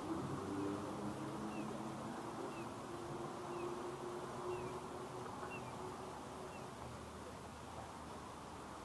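Pedestrian crossing signal sounding short, falling electronic bird-like chirps about once a second, six times, then stopping about two-thirds of the way through. Faint street noise and a low steady hum lie under the chirps.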